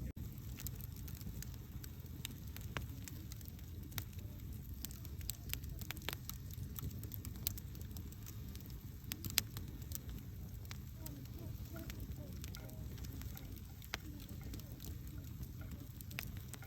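Campfire burning: wood crackling with irregular sharp pops over a steady low rumble of the flames, one pop standing out about nine seconds in.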